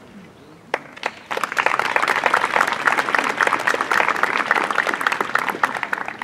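Audience applauding: a couple of single claps about a second in, then dense, steady clapping that dies away near the end.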